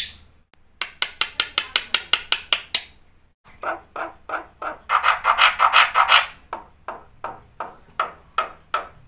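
Black-winged starling (jalak putih) singing a series of sharp repeated clicking notes, about six a second. After a short break about three seconds in, a denser chattering phrase follows, then slower, evenly spaced clicks.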